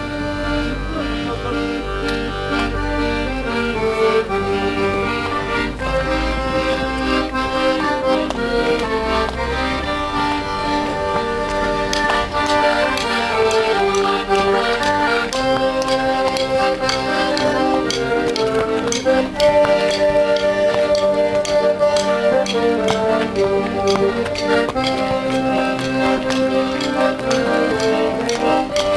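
Piano accordion playing a traditional folk dance tune, a melody carried over sustained chords and a bass line.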